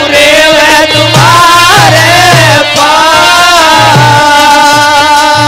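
Rajasthani devotional folk singing: a male voice winds through a melody over a deru drum struck with a stick in a steady beat, then settles on a long held note about four seconds in.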